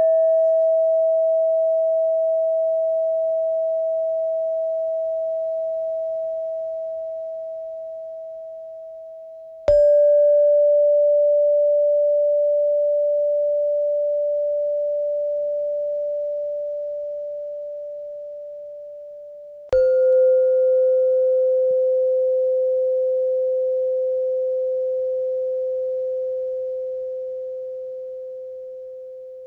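A struck metal meditation chime rings three times, about ten seconds apart. Each tone is pure and fades slowly, and each is a step lower in pitch than the last. Each strike marks a new breathing phase: breathe in, breathe out, hold.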